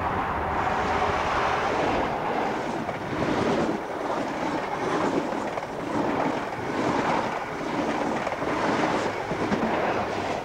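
InterCity 125 High Speed Train passing close by at speed, its Mark 3 coaches rolling past with a steady rail rumble and a clatter from the wheels that swells and fades at fairly even intervals.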